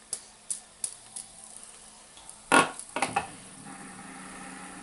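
Light clicks of plastic fidget spinners being handled, then a sharp knock about halfway through as the stack is set down on a wooden table. After that comes a steady whir of the stacked spinners spinning.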